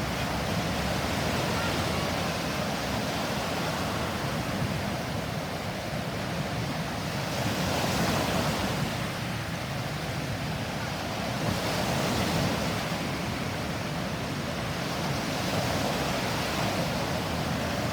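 Sea surf washing in, its level swelling and easing now and then, mixed with wind buffeting the microphone.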